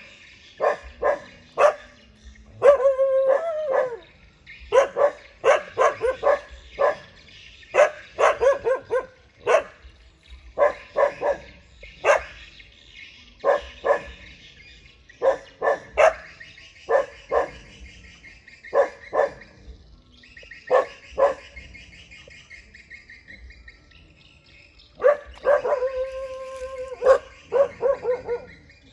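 Dogs barking repeatedly in short clusters of sharp barks, with a longer drawn-out call about three seconds in and another near the end. It is territorial alarm barking, the dogs guarding their home against strangers.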